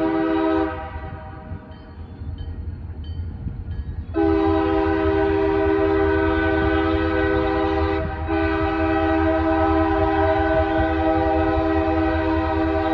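Multi-chime air horn of a CSX SD40 diesel locomotive sounding for a grade crossing as the train approaches: a blast ends under a second in, then after a pause a long blast starts about four seconds in, breaks briefly near the middle, and sounds again to the end. A steady low rumble runs beneath it.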